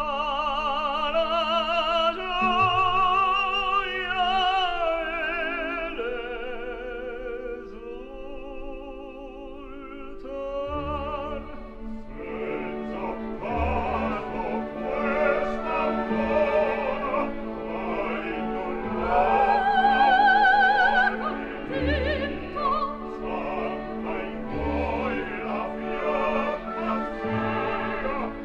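Operatic singing with orchestral accompaniment: a solo voice holds long notes with a strong vibrato. About eleven seconds in, the accompaniment grows fuller.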